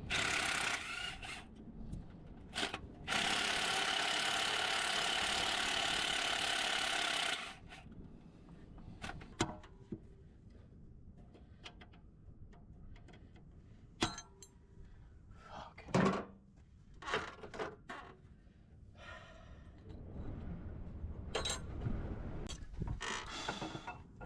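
A power tool runs in two bursts, a short one and then one of about four seconds, backing out the bolts of the camshaft retaining plate. Scattered clinks and knocks of metal engine parts being handled follow.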